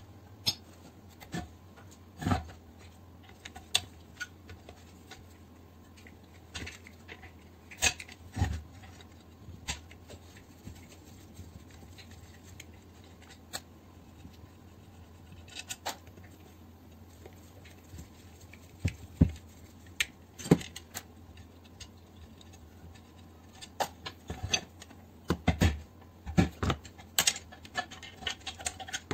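Irregular metallic clicks, taps and clinks of hand tools and small parts being handled while an air compressor's crankcase is taken apart, with a few louder knocks in clusters, over a steady low hum.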